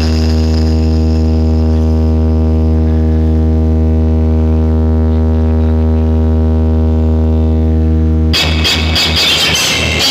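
DJ sound system playing a loud, steady low bass hum as a sound check. About eight seconds in it cuts suddenly to loud full-range music.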